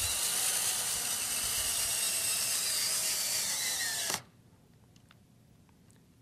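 Cordless drill-driver driving a screw into the speaker's baffle to mount a driver, with a steady motor whine for about four seconds. The pitch drops slightly just before it stops. A few faint clicks follow as the next screw is set.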